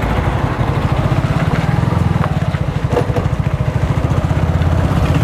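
Motorcycle engine running at a steady cruising speed, its low exhaust pulses rapid and even, with a rush of wind and road noise on the microphone.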